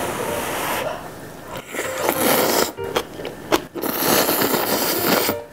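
Instant ramen noodles being slurped in long, noisy draws, three of them: at the start, about two seconds in, and about four seconds in. Short clicks come between the slurps.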